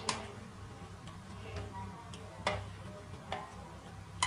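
A few faint, sharp clicks and taps, irregularly spaced, from hands wrapping and tying an inner-tube rubber strip around a homemade slingshot.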